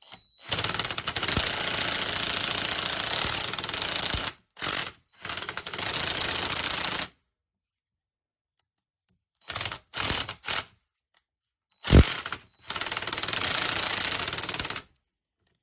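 Power impact tool hammering on a socket on a seized air suspension compressor bolt in bursts: several runs of a few seconds each, with short blips between and one sharp knock about twelve seconds in.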